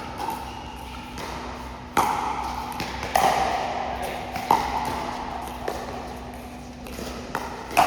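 Pickleball rally: paddles striking a hollow plastic ball, a sharp pop with a brief ring about once a second, some of them likely the ball bouncing on the court.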